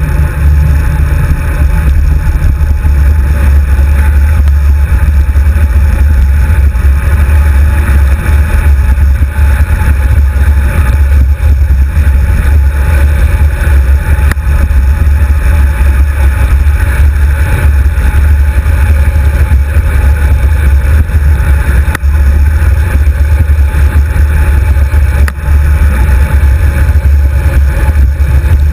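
Loud, steady wind buffeting on the microphone of a handlebar-mounted GoPro HD2 on a road bike, a deep rumble with a hiss over it, along with the rumble of the tyres on the tarmac.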